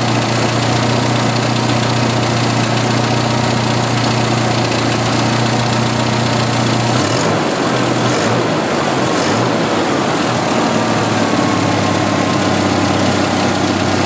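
1986 Jeep Cherokee XJ's 2.5-litre four-cylinder engine idling steadily, its pitch wavering briefly about halfway through before settling again. The idle is slower and smoother now that a crankcase-ventilation vacuum leak has been fixed.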